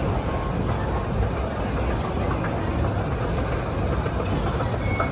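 Steady low rumble of city street traffic, vehicle engines running.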